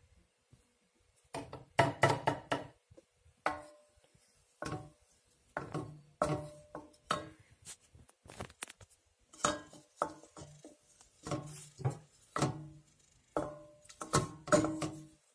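Hard household objects knocking and clinking as they are handled and set down on a hard surface: separate sharp knocks, each with a short ring, roughly one a second.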